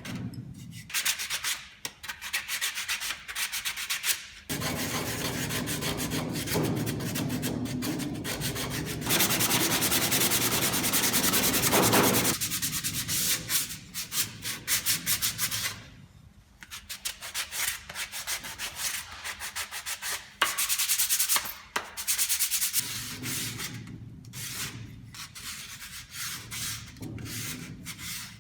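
Sandpaper rubbed by hand back and forth over a wooden spatula, a scratchy stroke-by-stroke sanding. In the middle it becomes a steady, continuous fast scrubbing for several seconds, then goes back to separate strokes.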